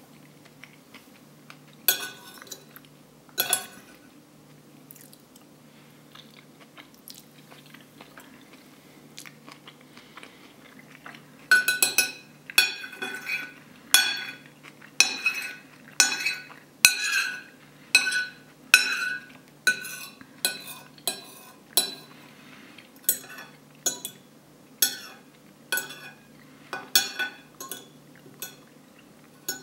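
Metal spoon and fork scraping and clinking against a plate, gathering up the last rice. Two scrapes come near the start, then from about the middle a run of short, ringing clinks about one a second until near the end.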